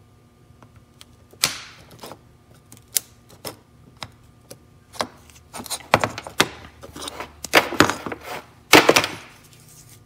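Small screwdriver prying at the case of a Stinger SSLC remote bass-knob to pop its front cover off: scattered clicks and scrapes at first, then a dense run of louder scrapes and knocks from about six seconds in until shortly before the end.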